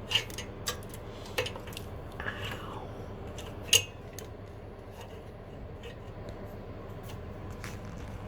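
Light metallic clicks and clinks of a replacement carburettor and its gaskets being handled and fitted onto a small engine, a few sharp clicks with a short falling squeak between them.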